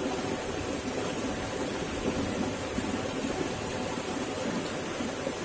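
Steady rushing of flowing water, an even noise without distinct splashes.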